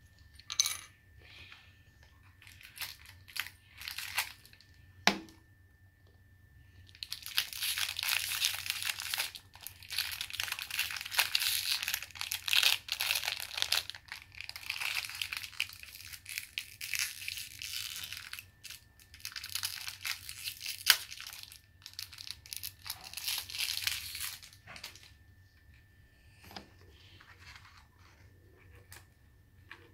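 Plastic wrapping and small packets from an L.O.L. Surprise ball being torn and peeled open by hand, crinkling for long stretches in the middle, with scattered small clicks and taps before and after.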